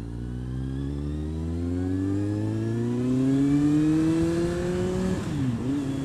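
Kawasaki Z750R's inline-four engine accelerating, its pitch rising steadily for about five seconds, then dropping sharply at a gear change near the end before picking up again.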